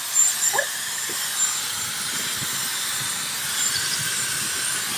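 Dyson Supersonic hair dryer blowing at its hottest, strongest setting: a steady rushing hiss of air with a thin, high steady whine over it.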